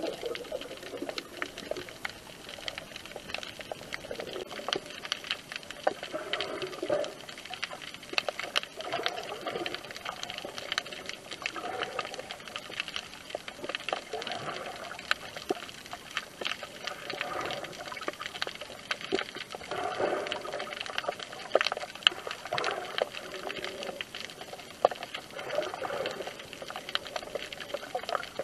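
Underwater sound picked up through a small action camera's waterproof housing while snorkeling: a muffled watery hiss full of small crackling clicks, with a dull rushing that swells and fades every couple of seconds.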